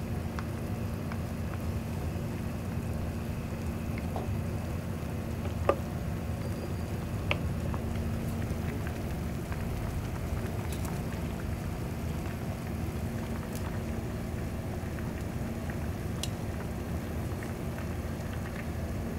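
Shabu-shabu broth bubbling in its pot over a steady low hum, with occasional light clicks of utensils, the sharpest about six and seven seconds in.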